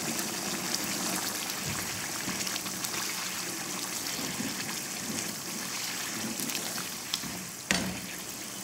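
Tomato and ground-beef sauce simmering and bubbling in a pan on a gas burner as green olives are stirred through it with a plastic spoon, a steady wet bubbling. Near the end the spoon knocks once against the pan.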